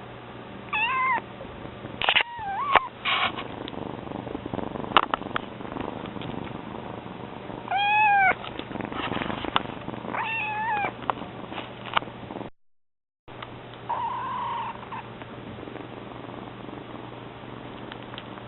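Young kitten meowing in feeble, high cries, about five short arching meows a few seconds apart, over the steady low purring of a second cat.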